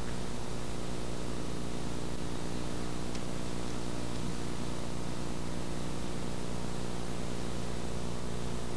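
Steady hiss with a low electrical hum underneath: the recording's background noise, with no distinct event.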